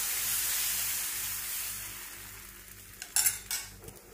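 Freshly spread rice-and-coconut dosa batter sizzling on a hot oiled pan, the hiss dying down after the first couple of seconds. Two sharp clicks come a little after three seconds in.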